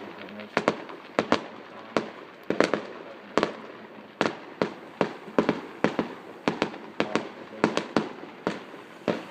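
Fireworks going off in a steady barrage: a run of sharp bangs, about two a second at uneven spacing, some coming in quick pairs, each dying away within a fraction of a second.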